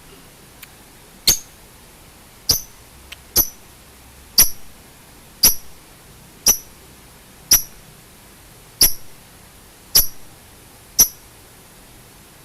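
A short, sharp, high chirp repeated ten times about a second apart, over a steady hiss. It is typical of a recorded bird call played as songbird 'therapy' audio.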